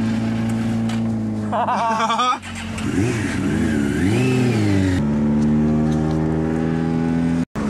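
Motorcycle engine idling alongside, revved up and down twice about halfway through, then settling back to a steady idle. A voice speaks briefly about two seconds in.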